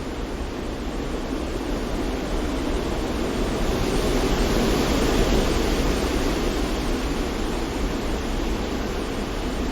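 Steady rushing noise of wind and sea surf. It swells for a few seconds in the middle, then eases back.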